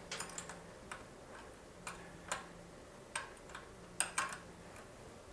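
Socket ratchet clicking in scattered, uneven short clicks as the engine mounting bolts are run down.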